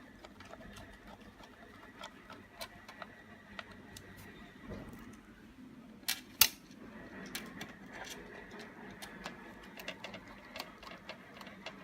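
Screws being driven to fix a hard drive inside a DVR's metal case: light clicks and scrapes of screwdriver and metal, with two sharp knocks close together about six seconds in.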